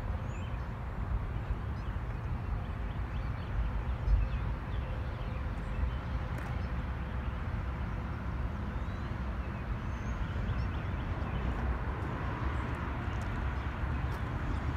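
Outdoor ambience of steady, distant rumble from traffic and an approaching freight train, growing a little toward the end, with a few faint bird chirps.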